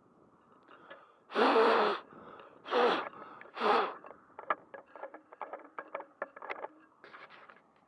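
Three loud breathy blasts close to the microphone, then a quick run of small clicks and rubs as the camera is handled.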